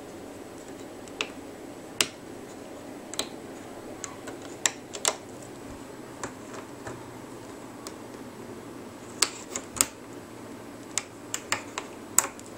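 Irregular small clicks and taps of a plastic hook and fingers against the clear plastic pegs of a rubber-band loom as bands are lifted over the pegs, over a steady low background hum.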